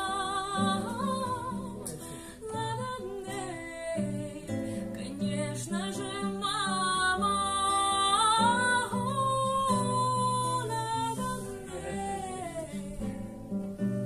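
Live music: a strummed acoustic guitar under a melody line that holds long, wavering notes and slides between them.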